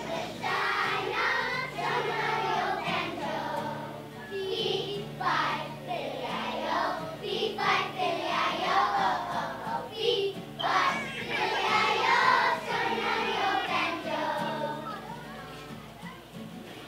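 A choir of young children singing a song together, growing quieter near the end.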